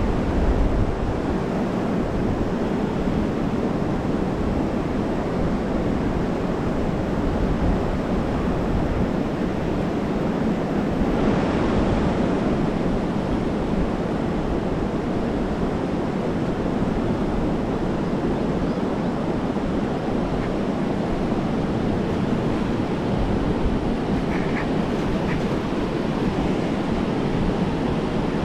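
Steady wind rushing over the microphone with water noise beneath it, swelling briefly about eleven seconds in.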